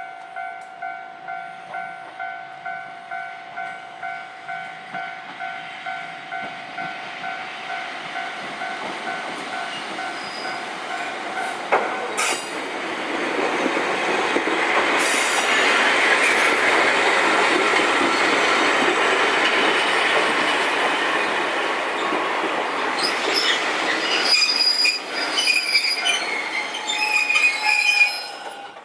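Level-crossing warning bell ringing in a steady electronic ding-ding, about two strikes a second, then stopping about twelve seconds in. An electric train then runs through, its running noise swelling loud. Near the end come high-pitched wheel squeal and clicks over the rail joints.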